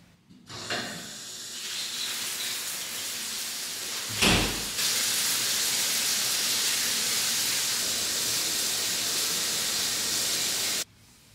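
Water running in a shower: a hiss that builds up, a knock about four seconds in, then a louder, steady spray that cuts off suddenly near the end.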